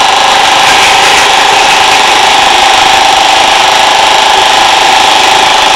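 Battery-powered Thomas & Friends Trackmaster toy train motor whirring steadily as the engine runs its cars around plastic track.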